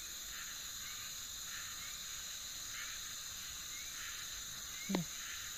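Steady high-pitched chorus of rainforest insects, with faint short rising chirps about once a second. One brief, quickly falling sound comes about five seconds in.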